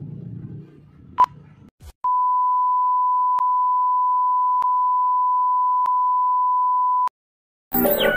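Film-leader countdown ending in a single short 1 kHz beep, followed by a steady 1 kHz test tone, the tone that goes with TV colour bars, with a faint click about every second and a quarter. The tone cuts off suddenly, and after a short silence music starts near the end.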